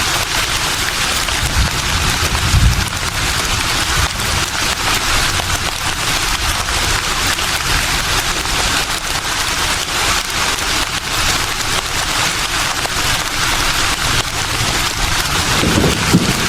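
Leaves rustling in a breeze: a steady, dense crackling hiss, with brief low rumbles about two and a half seconds in and again near the end.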